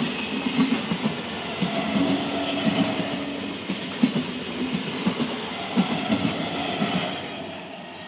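Old 12-coach Indian Railways EMU local train running past at close range, its wheels knocking irregularly over the rail joints under a steady rushing noise. The sound fades near the end as the last coaches go by.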